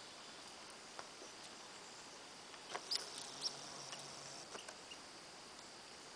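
Red squirrel's claws scratching and clicking on pine bark and branch as it climbs and scampers: a few scattered clicks, with a short burst of scrabbling about three seconds in as the loudest part.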